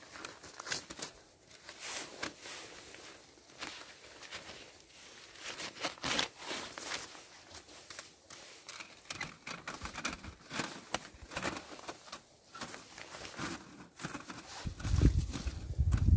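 Irregular rustling and crinkling with scattered sharp crackles, like material being handled, and a louder low rumble coming in near the end.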